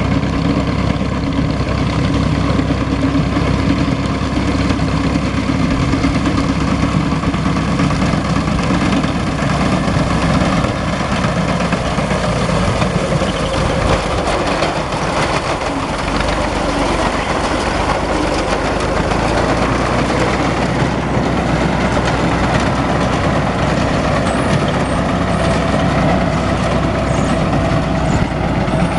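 Ursus tractor engine running steadily while it drives a wheat reaper machine cutting the crop.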